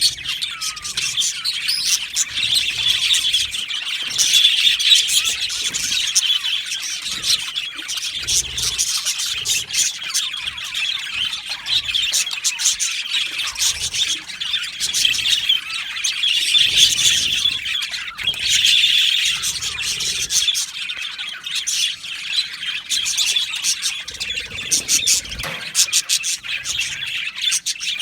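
A flock of budgerigars chattering and chirping continuously, many birds calling at once in a dense mix of warbles, chirps and short squawks.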